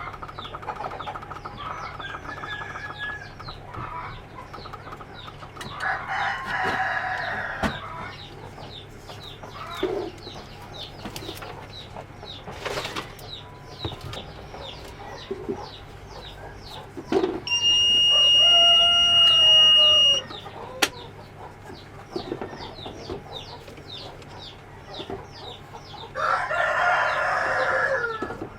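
Chickens clucking steadily, with rooster crows three times: about a quarter of the way in, a little past the middle (the loudest), and near the end.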